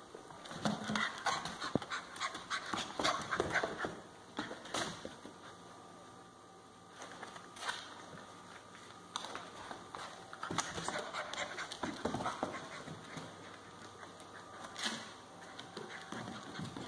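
Central Asian Shepherd puppy scampering on a hardwood floor, its claws clicking and tapping, with panting. The patter comes in two busy bursts, one early and one about ten seconds in.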